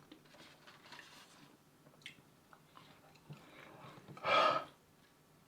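Faint, close-miked chewing and mouth sounds of a person eating fried chicken, with scattered small clicks and one short, louder noisy sound about four seconds in.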